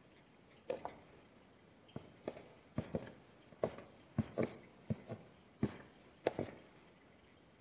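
About a dozen sharp knocks at uneven intervals, some in quick pairs, from Hartmann's mountain zebra hooves stepping on hard ground.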